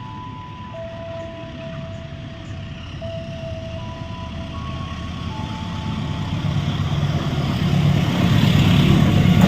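A slow tune of held notes plays over the station loudspeaker. Under it the rumble of an arriving KRL Commuter Line electric train grows steadily louder and is loudest near the end.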